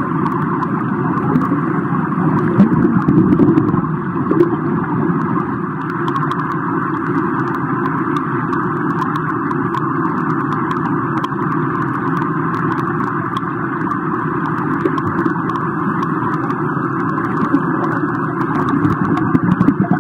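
Steady rumble of swimming pool water heard underwater, with scattered faint clicks. It swells as a freestyle swimmer's strokes and kicks pass overhead, about three seconds in and again near the end.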